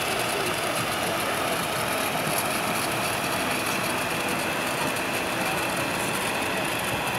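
Steady rushing hiss of the air-conditioning inside an Airbus A380 cabin, with the aircraft still parked at the gate.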